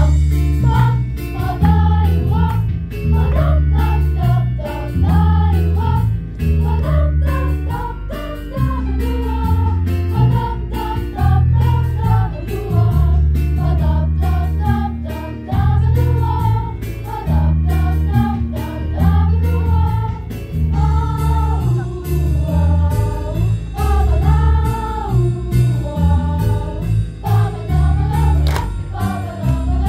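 School girls' choir singing in unison over an instrumental accompaniment with a heavy bass line; the music starts suddenly at the very beginning.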